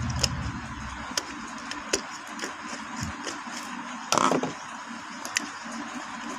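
Scattered light clicks and taps of wires and a tool being worked at a switchboard's terminals, with one louder clatter about four seconds in.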